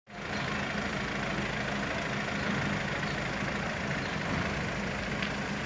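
Mercedes-Benz Vito police van's engine idling with a steady low hum as the van creeps forward, over a haze of street noise.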